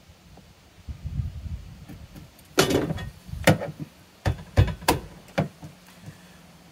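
Hammer striking a chisel on a vehicle's sheet-metal floor pan: about six sharp metallic blows in three seconds, after a second of low shuffling.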